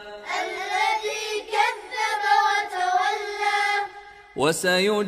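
A child's high voice chants a Quran verse in melodic recitation, repeating the line just recited. Near the end a man's deeper chanting voice comes in.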